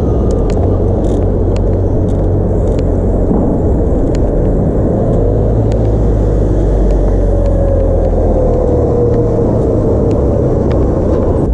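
Steady rumble of wind and tyre noise picked up by a bike-mounted camera while cycling along a paved road, with a few light clicks and rattles from the bike. A passing motor vehicle adds a faint, slowly falling whine from about seven to ten seconds in.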